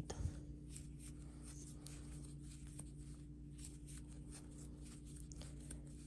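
Faint rustling and light scratching of yarn being worked with a crochet hook, in scattered soft ticks, over a steady low hum.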